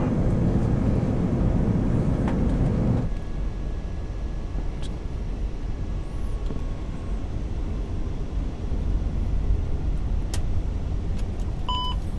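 Steady rushing noise of the Airbus A380 flight deck in flight, louder for about the first three seconds and then settling lower. A short electronic beep sounds near the end.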